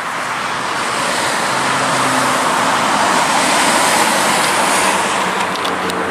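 Road traffic on a main road: tyre and engine noise of passing cars, swelling to its loudest as a four-wheel drive goes by about four seconds in, then easing off.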